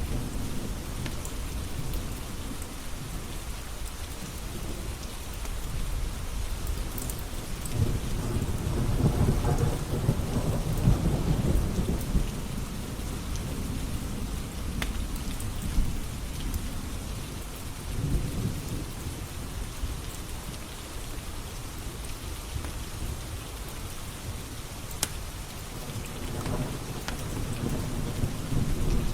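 Steady rain with low rolling thunder that swells about a third of the way in and again near the end, and a few sharp crackles from a wood fire.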